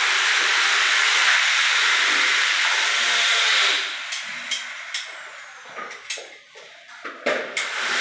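A loud, steady hiss for about four seconds that then drops away, followed by a run of sharp clicks and taps.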